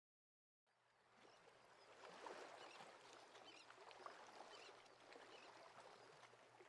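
Near silence: faint harbour ambience with soft, irregular water sounds.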